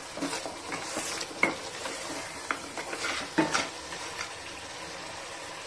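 Wooden spatula stirring mutton pieces in thick chilli masala in a frying pan, scraping and knocking against the pan over a steady sizzle of frying. The knocks come often in the first few seconds and then thin out, leaving mostly the sizzle.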